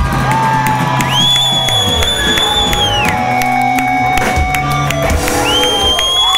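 Live rock band with electric guitars and drums playing loudly, long held notes ringing out as a song winds down, with the crowd cheering and whooping over it.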